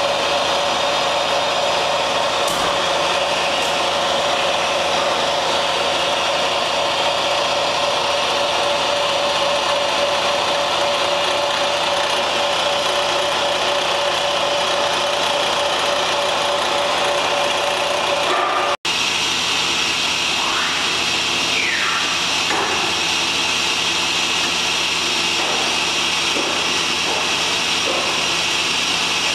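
Mazak SQT 250MY CNC turning center running: a steady mechanical hum with a constant motor whine. About two-thirds of the way through there is a brief dropout, and after it short rising and falling whines come and go as the turret slides move.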